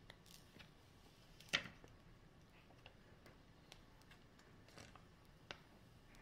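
Near silence with a few faint clicks and crinkles as the clear plastic wrap is handled and peeled off a new iPhone 6s. One sharper click comes about a second and a half in.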